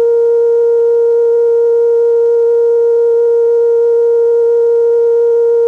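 Steady, loud test tone held at one mid pitch with faint overtones: the off-air signal a TV channel transmits after signing off for the night.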